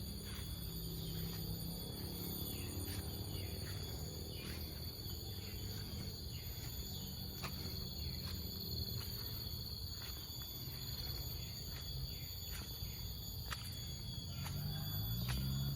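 Insects chirring in a steady high-pitched chorus, with a low hum underneath and scattered faint clicks.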